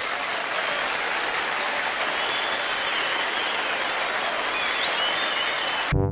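Crowd applauding and cheering, a dense steady clatter of clapping with a few high whistles; it cuts off suddenly near the end.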